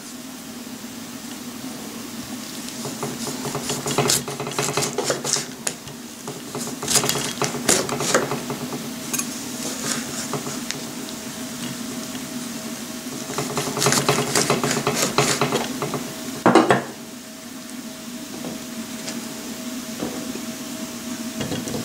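A chef's knife slicing a lemon on a wooden cutting board: short runs of knife strokes knocking on the board, with a single louder knock about three-quarters of the way through, over a steady low hum.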